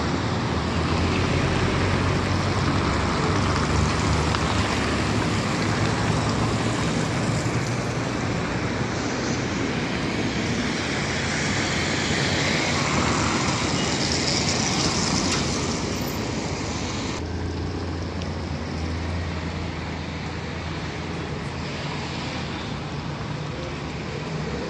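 City road traffic at a busy intersection: cars, a box truck, buses and a trolleybus pass with steady engine hum and tyre noise on asphalt. It is a little quieter in the last several seconds.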